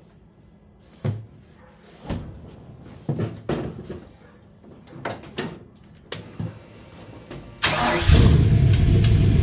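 A few knocks and thumps as someone climbs into a go-kart, then, near the end, its engine cranks briefly and fires right up on its first start after months sitting unused, settling into a steady, loud run.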